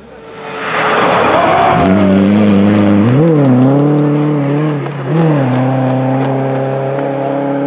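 Rally car on a snow stage: a loud rushing noise about a second in, then the engine running at high revs, its pitch jumping up and falling back twice before holding steady.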